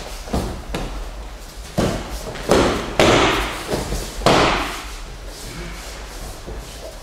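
A series of heavy thuds as aikido practitioners are thrown and take breakfalls on the training mats. The loudest four come in the first half, each trailing off briefly.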